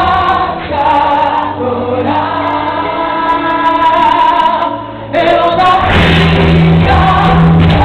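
Live gospel music heard through a PA: a woman sings into a microphone over the band, holding one long note in the middle. The sound dips briefly about five seconds in, then comes back louder with the band and bass.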